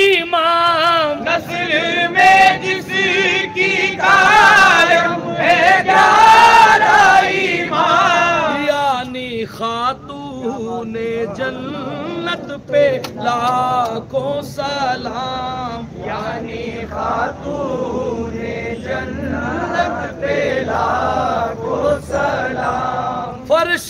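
A qawwal's strong male voice singing a slow devotional chant in long, wavering phrases, with a group of men's voices joining in chorus.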